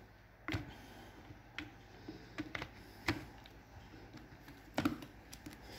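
Scattered light clicks and knocks of hard plastic and metal drill parts being handled and pressed into the drill's plastic housing. The sharpest come about half a second, three seconds and nearly five seconds in.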